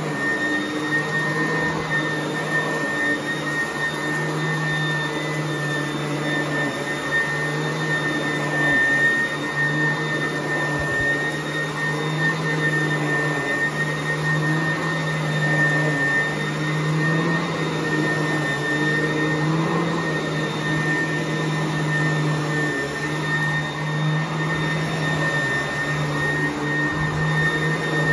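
Sanitaire vacuum cleaner running steadily over carpet, dry-vacuuming it before hot water extraction. Its motor gives a steady high whine over a low hum.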